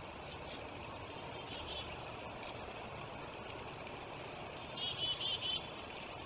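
Steady rush of river water, with a bird's short high calls, four in quick succession about five seconds in.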